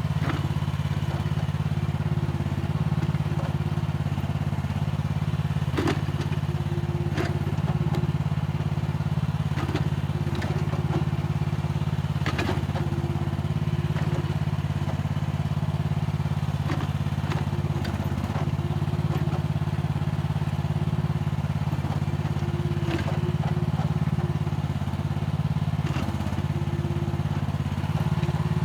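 Mini excavator engine running steadily under load as it digs and scrapes soil. A higher tone comes and goes over the engine drone, with scattered knocks and clatter from the bucket working the ground.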